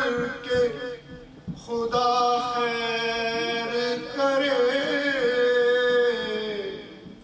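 A man's voice reciting a marsiya, an Urdu elegy, in a chanted melody of long held, wavering notes. It breaks off briefly about a second in, and the last note fades near the end.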